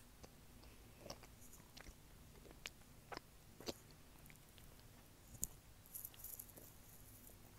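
Faint close-miked chewing of chocolate, with scattered wet mouth clicks and smacks picked up by an earphone-cable microphone held at the mouth.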